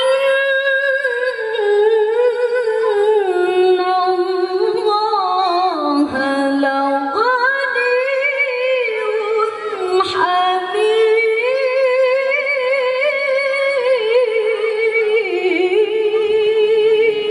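A woman's melodic Quran recitation (tilawah): long, ornamented phrases in which her voice wavers quickly up and down around one pitch, with brief breaks about six and ten seconds in.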